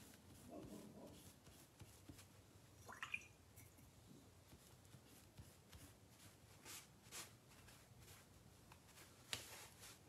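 Near silence: room tone with a few faint scattered clicks and taps.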